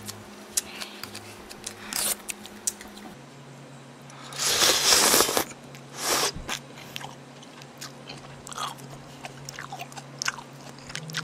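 Close-miked noodle eating from a bowl of ramyeon: small clinks of a metal spoon and chopsticks against the bowl, then a loud slurp of about a second a little over four seconds in and a shorter one soon after, with lighter chewing and utensil sounds.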